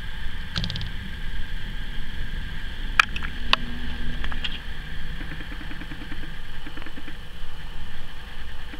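Steady low background rumble and hum, with two sharp clicks about half a second apart around three seconds in.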